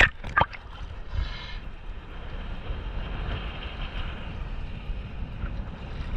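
Rough, choppy sea waves slapping and washing around a camera held at the water's surface, with wind rumbling on the microphone. Two sharp splashes right at the start and a short hissing wash about a second in.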